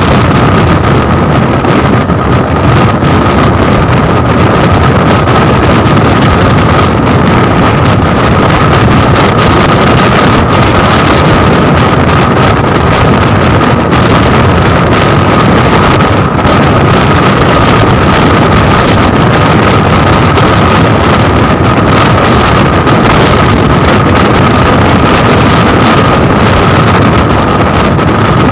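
Express train running at speed, a loud steady rush of wheels on track and wind buffeting the microphone, with a steady high whine running under it.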